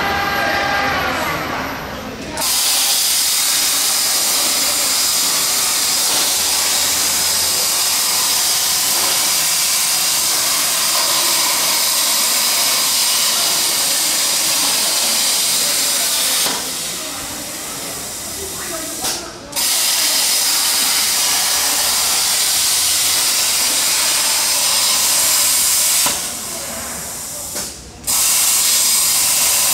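CNC plasma cutting torch hissing loudly as its arc cuts holes in sheet steel. The hiss starts about two seconds in, stops twice for a couple of seconds between cuts, and starts again each time.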